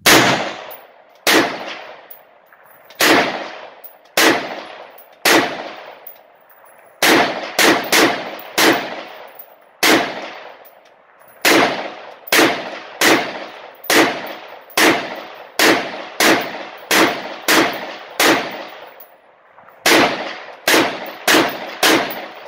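Springfield Armory Saint Victor AR-15 rifle firing semi-automatic, about 28 single shots. For the first ten seconds the shots come a second or more apart, then quicker at about two a second, each with a short reverberating tail.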